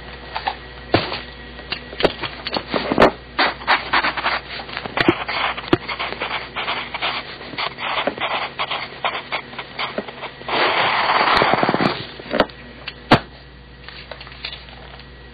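Irregular clicks and knocks from a wooden pencil being handled and set down on a desk, with a stretch of scraping of about a second and a half a little past the middle.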